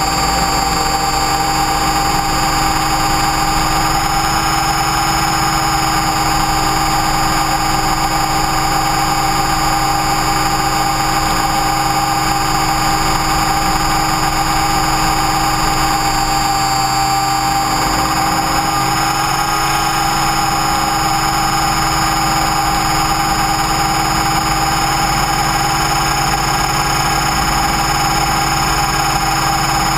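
Align T-Rex 550E electric RC helicopter heard from its onboard camera: a steady whine from the motor and drivetrain over a rotor rumble. The pitch shifts slightly a little past halfway through.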